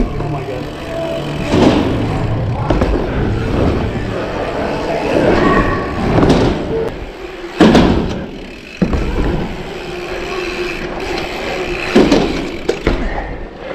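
Commencal Absolut dirt-jump bike rolling over wooden skatepark ramps and concrete, its tyres making a steady rumble, broken by several loud thuds as it hits transitions and lands.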